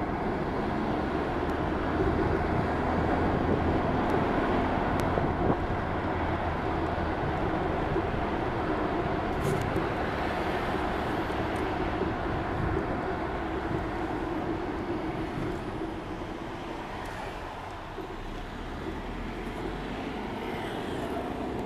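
Road vehicle in motion heard from inside its cabin: a steady rumble of engine and tyres on the road. It eases off slightly for a couple of seconds late on, then picks up again.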